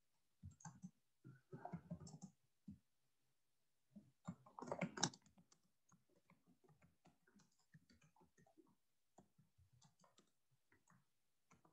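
Faint typing on a computer keyboard: quick runs of key clicks in two bursts in the first half, the louder about four to five seconds in, then a few scattered light ticks.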